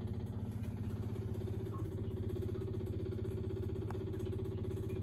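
Engine running steadily at an even speed, its firing pulses making a fast, regular throb.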